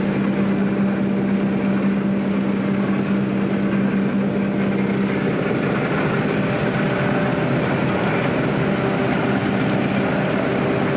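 Sawdust-grinding impact pulveriser running loudly and steadily, a dense mechanical rush with a steady hum that drops out about five seconds in and comes back near the end.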